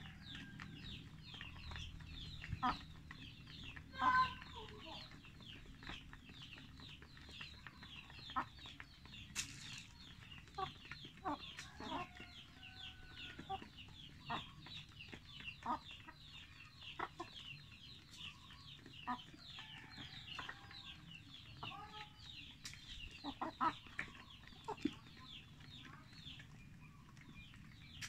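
A flock of barred Plymouth Rock chickens clucking while they feed, in short scattered calls, the loudest about four seconds in. A continuous run of short high chirps carries on underneath.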